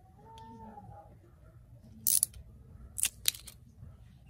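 Small scissors snipping the plastic seal on a gel polish bottle: a crisp snip about two seconds in, then two more quick snips around three seconds.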